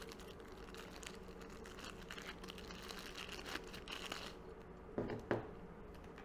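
Faint crinkling and rustling of plastic packaging being handled, then two light knocks about five seconds in as a small black mounting bracket is set down on a wooden tabletop.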